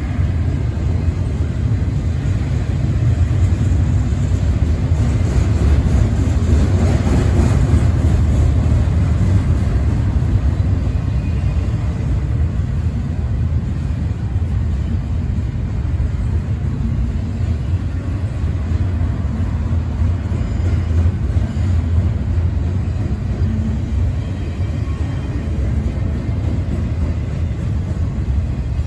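Intermodal freight train cars rolling past, a steady low rumble of wheels on rail that swells a little for a few seconds early on.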